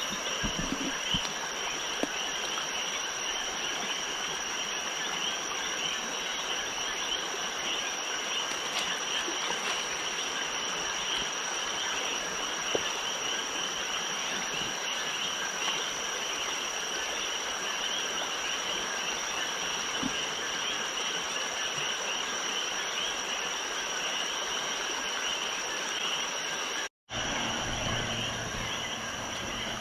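Dense night chorus of frogs and insects: a steady high insect trill over a thick layer of overlapping frog calls. Near the end it cuts out completely for a moment.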